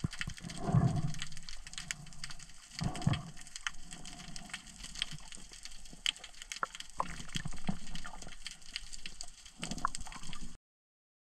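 Underwater sound picked up by a camera below the surface: a constant crackle of sharp clicks, with two low rushing swells of water about a second and three seconds in. It cuts off abruptly near the end.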